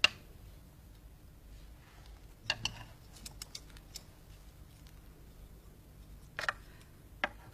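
A few faint clicks and taps of chopsticks against porcelain dishes at a meal, with a short cluster of clicks about two and a half seconds in and single ones near the end.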